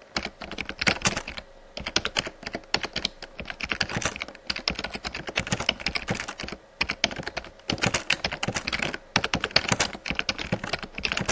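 Computer keyboard typing: rapid runs of key clicks broken by several brief pauses.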